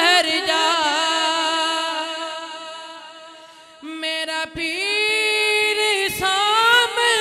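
A male voice sings a manqabat, a devotional praise song, into a microphone. A long held note fades away over about three seconds, then a new phrase begins about four seconds in, with the pitch bending and sliding.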